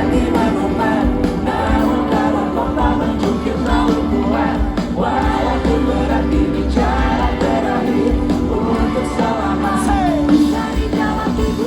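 Live band playing a song, with singing over a steady low bass note and full band accompaniment.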